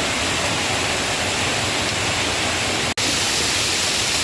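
Steady, loud rush of a waterfall and stream cascading through a narrow rock gorge, broken by a split-second gap about three seconds in.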